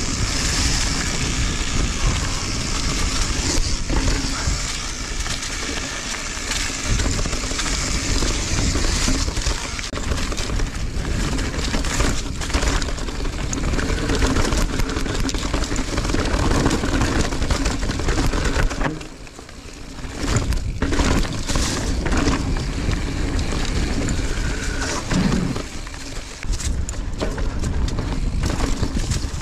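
Mountain bike ridden along a rough dirt trail: steady rushing noise of tyres and wind, with many sharp knocks and rattles from the bike over rocks and roots. It dies down briefly about two-thirds of the way through.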